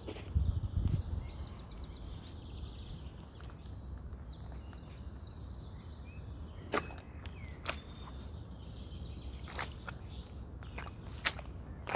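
Sneakers stepping in a muddy puddle: a couple of heavy wet thumps in the first second, then scattered sharp smacks and pops from the wet shoes in the second half, over a steady low rumble. Birds chirp faintly in the first half.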